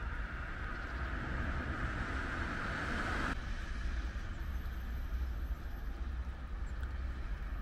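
Steady outdoor background noise with a low rumble, which changes abruptly a little over three seconds in.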